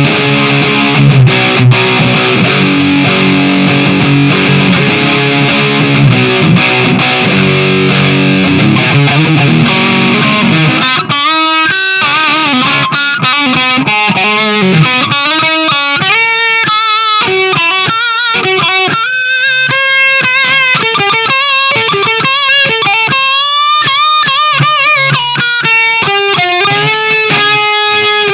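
Kramer Baretta Special electric guitar played through an amp on a crunch (light overdrive) tone with the guitar's volume fully up: about ten seconds of ringing, distorted chords, then single-note lead lines with bent and wavering notes.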